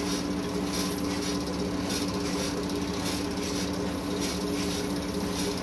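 The electric motor and screw extruder of a small plastic blow-moulding machine running, a steady hum with a faint swish repeating about twice a second.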